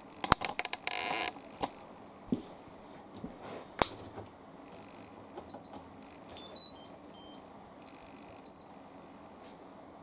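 Hoover condenser dryer's control panel giving a series of short high-pitched electronic beeps as a drying cycle is selected, after a cluster of sharp clicks and knocks from handling the machine.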